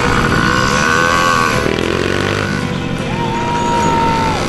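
Small children's mini dirt bikes running slowly along a dirt track, their engines buzzing under people's shouting voices. One engine's pitch rises and holds for about a second near the end.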